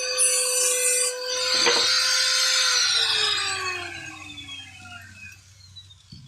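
Small electric power tool motor running at a steady pitch against wood, with rasping and a knock, then switched off about three seconds in and winding down to a stop with a falling whine.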